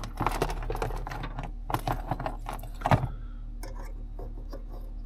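Small hard parts clicking and rattling in the hands for about three seconds, then a few light ticks, as the switch panel's swivel mount is fitted together.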